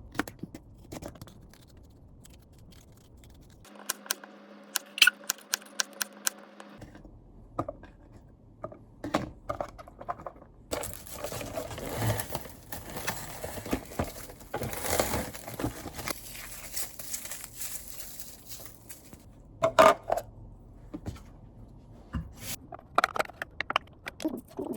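Small clicks, taps and scrapes of objects being handled, with a steady hiss lasting several seconds in the middle and a brief low hum about four seconds in.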